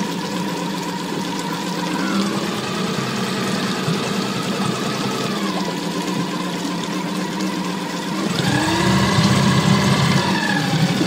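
Suzuki DF25 four-stroke outboard motor running, its pitch rising about two seconds in and easing back a few seconds later, then revved higher and louder about eight seconds in before dropping back near the end.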